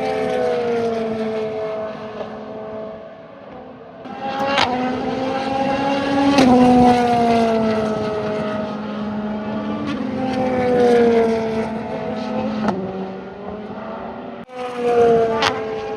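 GTD Pro class GT race cars passing at speed one after another, each engine note falling in pitch as it goes by, with a few sharp cracks among them.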